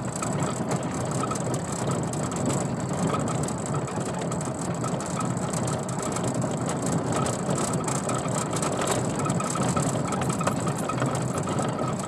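Vehicle driving over a paving-stone road: the tyres and body give a steady, fast rattle from the stones.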